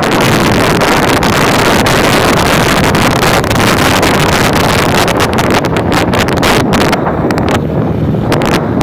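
Heavy wind buffeting on the microphone of a moving motorcycle, a loud steady rush with crackling gusts, over the engine and road noise.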